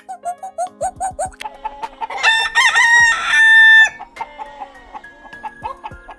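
Chickens clucking in quick runs of short calls, with one loud rooster crow lasting about a second and a half in the middle.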